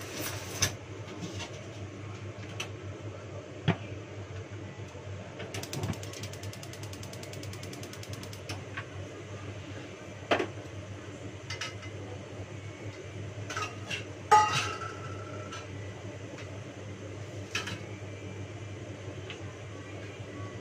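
Kitchen work at a stove: metal pots and utensils knocking and clinking, with a sharper metallic clang that rings briefly about two-thirds of the way in. About a quarter of the way in there is a rapid ticking lasting roughly three seconds. A steady low hum runs underneath.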